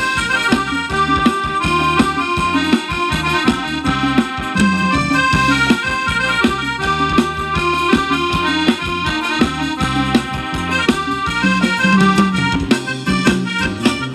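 Instrumental break of Thai ramwong dance music: a lead melody over a bass line and a steady drum beat, with no singing.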